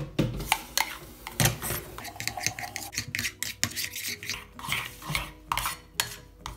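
Metal spoon stirring a thick homemade glue paste in an enamel saucepan: a rapid, irregular run of scrapes and clinks against the pan's sides and bottom.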